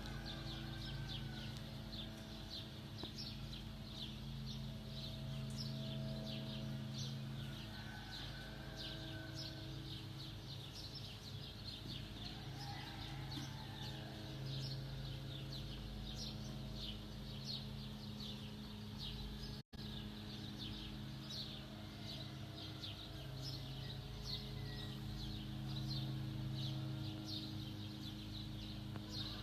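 Outdoor ambience: small birds chirping in a quick repeated pattern, about two chirps a second, over a steady low hum.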